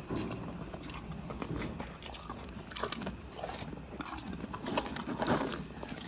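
A horse eating feed from a bucket: irregular crunching and rustling as its muzzle works through the feed, loudest about five seconds in.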